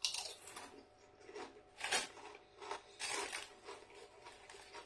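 Crunching of a thin potato crisp being chewed: irregular crisp crackles over several seconds.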